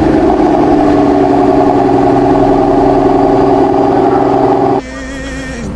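Mercedes-Maybach S480 engine running loudly at a steady, unchanging pitch, then cutting off abruptly near the end.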